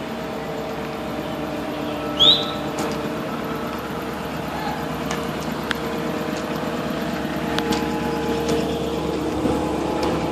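Diesel engine of a John Deere 230C excavator idling, a steady hum. About two seconds in comes a brief, high, rising squeak, the loudest moment, with a few faint clicks later.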